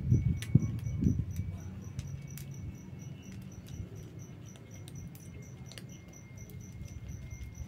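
Two kittens crunching and chewing dry kibble from a plate, loudest in the first second and then softer. An insect chirps steadily behind it, about four pulses a second.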